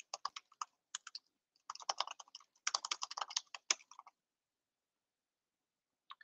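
Typing on a computer keyboard: quick runs of keystrokes with short pauses, stopping about four seconds in.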